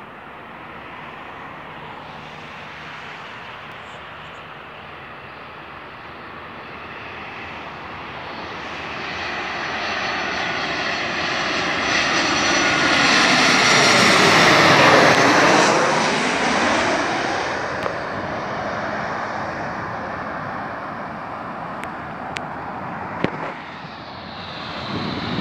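Boeing 737-800's CFM56-7B turbofan engines on landing approach, passing low overhead. The sound swells to a peak about fourteen seconds in, with a whine that drops in pitch as the jet goes over, then fades away.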